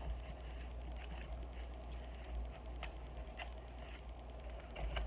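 Paper rustling with a few faint, sharp ticks as journal pages and paper inserts are handled and turned, over a steady low hum.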